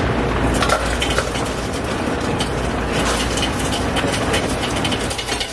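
Dense crinkling and crackling of a drink being grabbed and handled, many small irregular clicks over a steady low hum.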